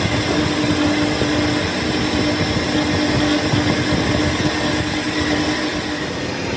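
A belt-driven lathe runs with a truck flywheel spinning on it for resurfacing. It makes a steady machine hum over a dense rushing noise, and the hum fades near the end.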